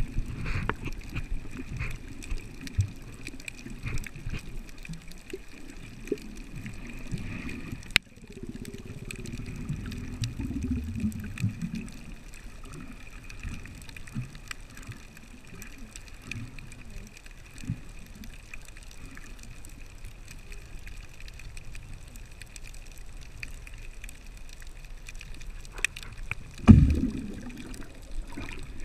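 Underwater ambience heard through a submerged camera: a muffled, uneven low rumble of moving water, with scattered small clicks and a faint steady high tone. A sharp click comes about 8 seconds in, and a louder low rush of water near the end.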